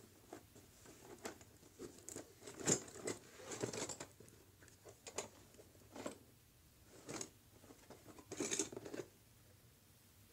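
A small cardboard box being handled and opened by hand, with irregular scrapes, rustles and light taps. There is a louder run of them about two and a half seconds in and another about eight seconds in.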